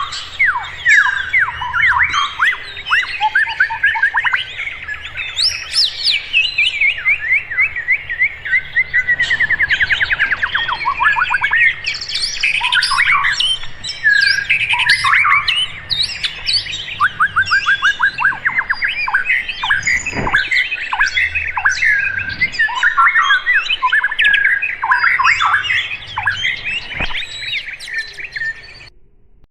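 Several songbirds chirping and singing together, a dense mix of quick repeated notes and short trills. It fades out near the end.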